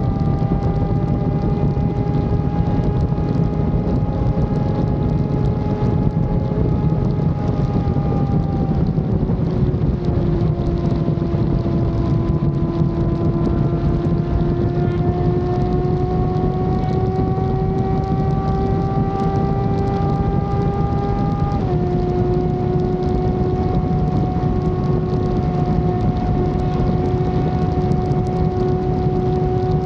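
Motorcycle engine running at steady cruising revs under heavy wind rush. The engine pitch dips about nine seconds in and climbs slowly. About twenty-two seconds in it steps down suddenly, as at an upshift, and then holds steady.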